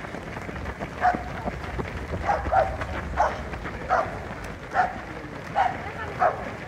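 A dog barking repeatedly: short barks, a little over one a second, starting about a second in.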